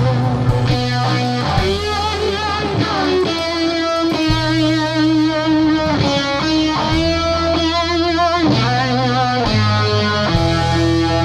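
Instrumental background music led by electric guitar over a bass line, with long held lead notes that waver in pitch.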